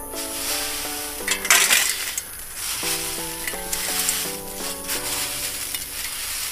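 Handfuls of small paper pop-up crackers (snap-pops) rustling and rattling as they are scooped and poured into a steel plate, loudest about one and a half seconds in, over background music with a simple note-by-note melody.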